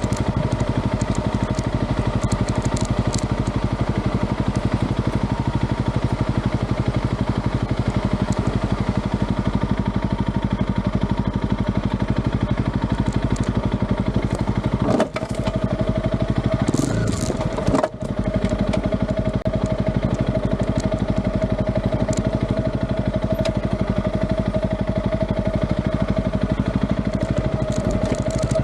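An engine running steadily, with two brief dips in level about halfway through.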